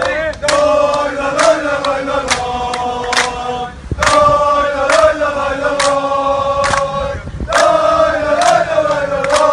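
Group of male football supporters chanting a terrace song in unison, with sharp hand claps through it. The chant breaks briefly between phrases twice.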